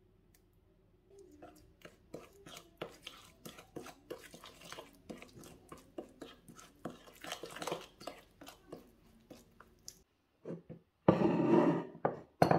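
Metal fork clicking and scraping against a ceramic bowl while a spice paste is stirred, in quick irregular taps. Near the end, after a short break, a louder rush of noise lasting about a second and a half.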